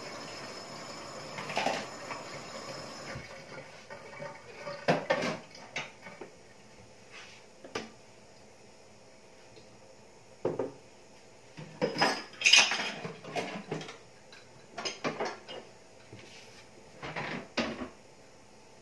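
Scattered clinks and clatter of metal kitchenware and dishes, in short bunches a second or two apart, loudest about twelve to thirteen seconds in. A faint steady hiss fades out after the first few seconds.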